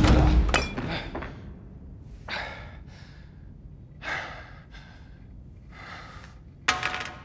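A heavy low thump with a sharp click at the very start, then a man breathing hard and unevenly: gasps and sighs a second or two apart, the loudest one near the end.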